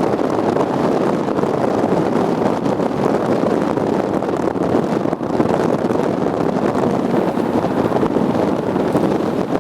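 Loud, steady rushing of wind on the microphone mixed with the running noise of a moving car.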